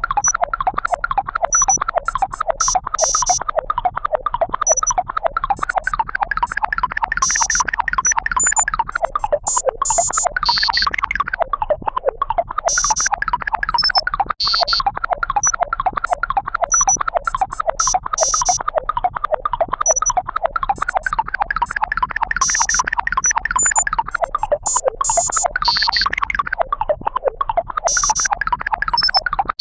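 Electronic keyboard sound effects: a dense, continuous run of rapidly warbling synthesized tones, peppered with short high-pitched blips.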